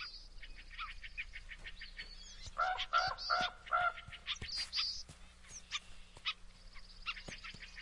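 Birds calling in a winter forest: scattered short high chirps and a couple of thin, even trills, with a quick run of louder repeated calls about three seconds in.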